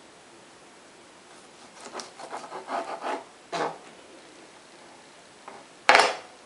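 A kitchen knife sawing through raw chicken breast on a plastic cutting board: a quick run of rubbing, scraping strokes, then one more stroke. Near the end comes a single sharp knock, the loudest sound.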